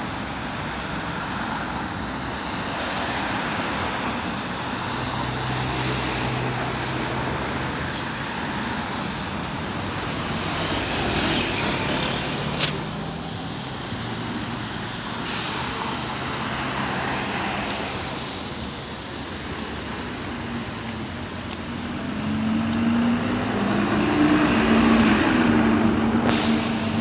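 Steady road traffic, cars and vans passing. In the last few seconds a red double-decker bus draws close, and its engine hum grows louder. There is a sharp, short click or hiss about halfway through.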